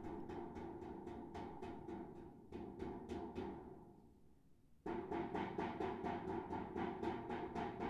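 Rapid, even tapping from the basement, carried up through a metal air duct, which gives it a resonant ringing tone. It dies away about four seconds in and starts again abruptly about a second later.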